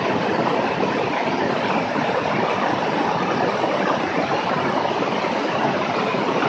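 Beechcraft S35 Bonanza in flight, a steady rush of airflow and engine noise that stays even in level throughout.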